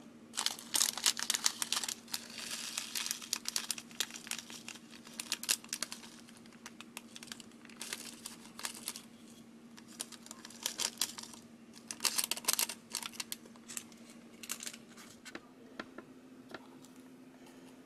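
Candy sprinkles rattling in a thin clear plastic kit tray as they are tipped out, with the plastic crinkling. It comes in several bursts of rapid clicking, the longest over the first few seconds.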